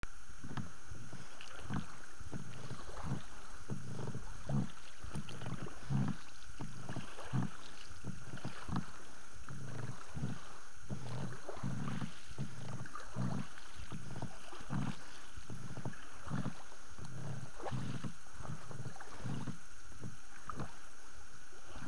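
Oars rowing an inflatable boat through a weedy channel: a steady rhythm of low knocks and splashes from the strokes, about two a second.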